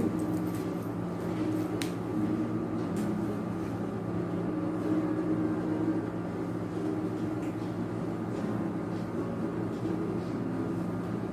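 Steady low mechanical hum from a running machine, with a few faint clicks in the first three seconds.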